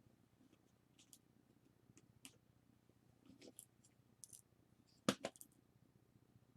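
Scattered faint clicks and light taps from the parts of a Nikon 18–55 mm lens being handled and worked on during disassembly, with two sharper knocks a little after five seconds in.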